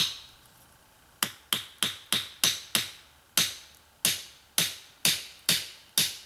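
A wooden wedge being hammered into the split top of a wooden axe handle: a quick series of sharp knocks, each with a short ring, about two to three a second after a pause of about a second. The wedge is being driven home to lock the axe head onto the handle.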